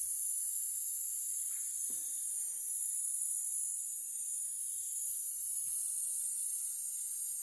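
Steady high-pitched hiss of steam from the small Sipp steam engine setup, with a faint low hum underneath and a couple of soft knocks.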